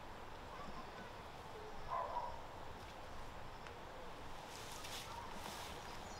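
Quiet outdoor ambience with a faint call about two seconds in and brief rustling near the end.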